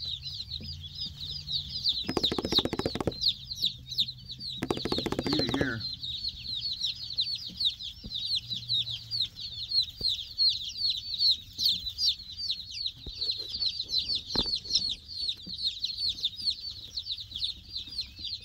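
A flock of newly arrived baby chicks peeping nonstop, a dense chorus of short, high, falling peeps. Two short, lower, rough sounds break in about two and five seconds in.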